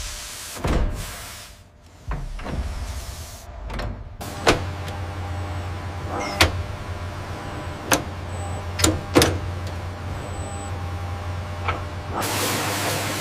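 Machinery running with a steady low hum, punctuated by half a dozen sharp clicks, then a loud hiss that starts near the end.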